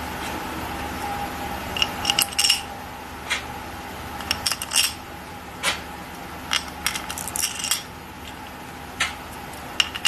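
Metal parts of a Wilwood four-piston brake caliper clinking and tapping together as the caliper is assembled. There are short sharp clinks with a brief ring in several clusters, starting about two seconds in, over a steady background hum.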